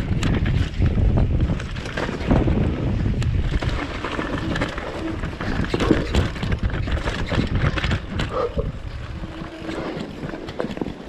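Commencal V4.2 downhill mountain bike running fast over rough trail: wind buffeting the GoPro's microphone over a low tyre rumble and constant rattles and knocks from the bike.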